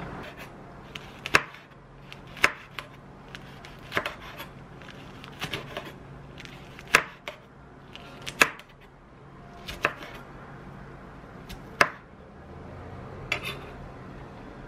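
Kitchen knife slicing a green chili pepper on a wooden cutting board: slow, separate knocks of the blade against the board, about one every second, some in quick pairs. A faint steady hum runs underneath.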